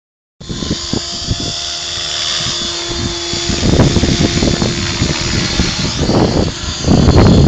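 Radio-controlled model helicopter flying: a steady, high-pitched whine from its motor and spinning rotors. Wind rumbles on the microphone near the end.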